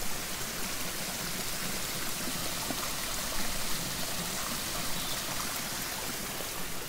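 Steady rushing hiss of running water, even in level throughout.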